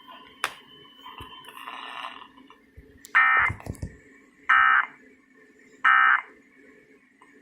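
Emergency Alert System end-of-message data tones: three short identical buzzing bursts, about a second and a half apart, marking the end of the alert, heard through a radio's speaker. A faint click comes shortly before them.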